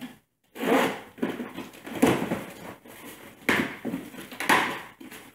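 A cardboard box being opened by hand: several short, irregular ripping and scraping noises as the tape and flaps are torn open.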